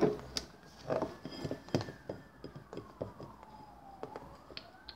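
A faint siren wailing, its pitch falling slowly and then rising again near the end. Over it come scattered light clicks and knocks from a plastic doll and toy bottle being handled.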